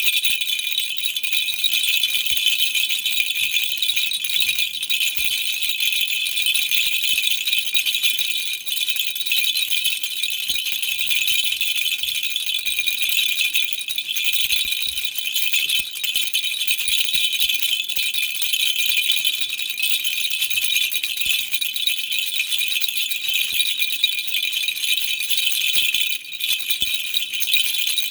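Baby rattle shaken without pause, giving a steady, high jingling rattle that drops briefly about two seconds before the end.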